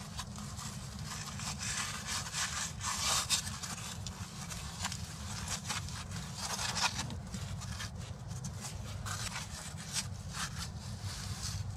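Gloved hand rubbing and scraping wet mud into the gaps between stone slabs, with irregular scraping strokes over a steady low rumble.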